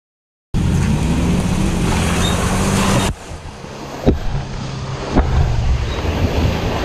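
Pickup truck engine running as it drives through muddy ruts, with wind on the microphone. It starts abruptly about half a second in, and two sharp knocks come about four and five seconds in.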